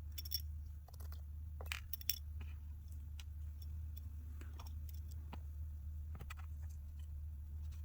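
Small tools clicking and tapping against a smartphone's parts during disassembly, a few sharp ticks in the first couple of seconds and fainter ones later, over a steady low hum.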